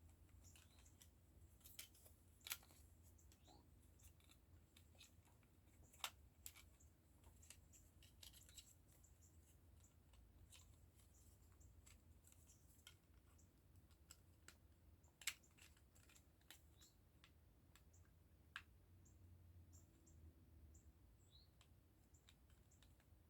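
Faint, scattered clicks and taps of small plastic model-kit parts being handled and pressed together, over a quiet steady room hum.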